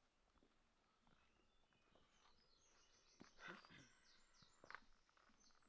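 Faint woodland birdsong: a small bird singing a run of short, quick, high falling notes that starts a little over two seconds in. Two soft clicks, like twigs or footsteps, stand out just past the middle and about a second later.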